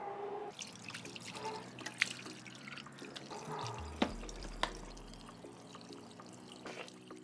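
Water running from a bathroom sink tap into the basin and being splashed by hands during face washing, with a few sharp clicks.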